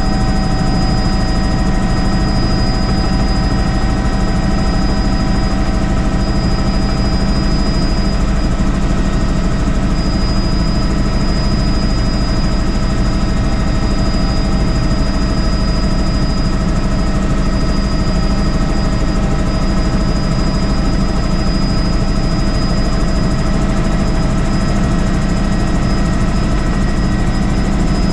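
Helicopter rotor and engine running steadily: a loud, constant drone with a thin high whine above it.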